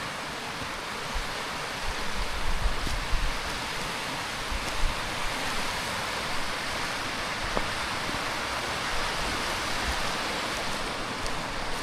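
Steady rush of a mountain stream, with a few brief low thumps in the first few seconds.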